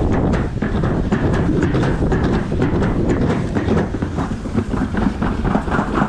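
Summer toboggan sled running fast down a stainless-steel trough track: a steady rumble with rapid rattling clicks from the sled on the metal.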